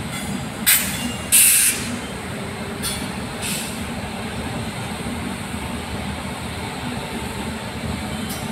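Pair of coupled electric locomotives hauling a goods train past at low speed: a steady rumble of wheels and running gear, broken by several short sharp hisses, the loudest about a second and a half in.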